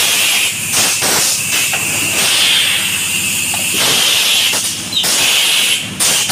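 Fully pneumatic PET jar blow moulding machine running: repeated loud hisses of compressed air with sharp valve clicks, over a steady low hum.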